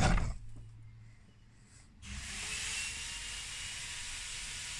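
Steady background hiss that starts abruptly about two seconds in, with a faint wavering hum beneath it. The first part is nearly quiet.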